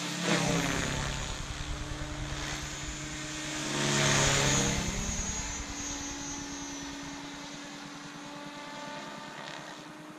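Electric Diabolo 550 RC helicopter's rotor and motor whirring in aerobatic flight, with louder swells about half a second in and around four seconds in. It then settles to a steadier, quieter whir as the helicopter flies farther off.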